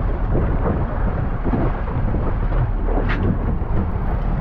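Wind buffeting the microphone with a low rumble, over the rush of sea water along the boat's side; a short sharp knock about three seconds in.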